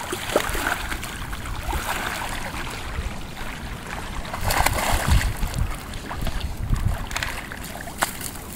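Wind buffeting the microphone over lapping lake water, with a hooked smallmouth bass splashing at the surface about halfway through as it is played in to the bank.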